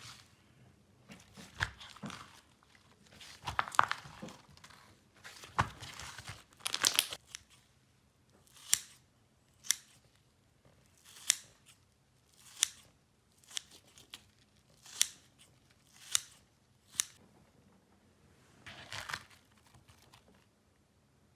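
Slime being squeezed and pulled, with crackling and tearing sounds. Then comes a series of about eight sharp, crisp snaps roughly a second apart, and one more crackly squish near the end.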